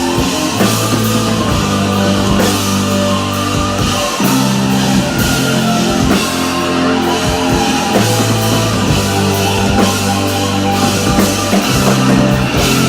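Rock band playing live, with a full drum kit and electric guitars over long held bass notes, without vocals.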